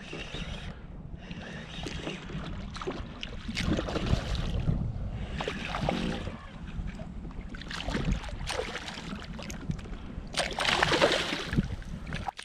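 Hooked fish splashing and thrashing at the water's surface beside a kayak, with water slapping against the hull and wind rumbling on the microphone. The splashing comes in irregular bursts and is loudest about ten and a half seconds in, as the fish thrashes close to the boat.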